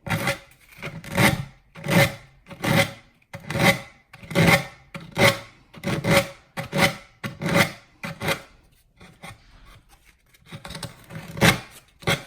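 Sandpaper rubbed in rhythmic strokes along the edge of a paper-covered wooden drawer front, about one stroke every three-quarters of a second, rasping off the overhanging scrapbook paper. About two-thirds of the way through the strokes turn softer and sparser, with a couple of louder ones near the end.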